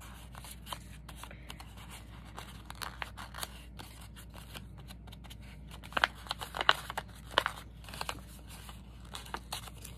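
A sheet of printed paper being scrunched and crinkled by hand to distress it: a run of irregular crackles, busiest and loudest about six to eight seconds in.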